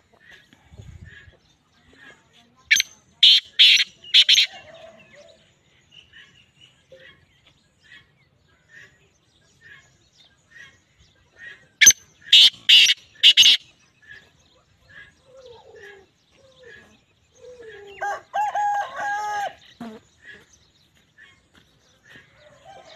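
Caged black francolin calling twice, about nine seconds apart: each call a harsh, grating run of four rasping notes. Between the calls, faint regular chirps.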